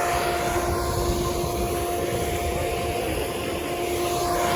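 A steady machine hum holding two constant tones over an even rushing noise and a rumbling low end.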